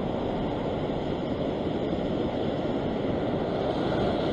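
Steady rush of surf washing over a rock platform, with wind noise on the microphone.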